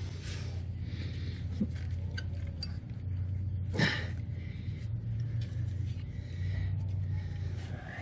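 Brake pads and their metal hardware clicking and knocking as they are fitted by hand into a front brake caliper bracket, with one sharp knock about four seconds in, over a steady low rumble.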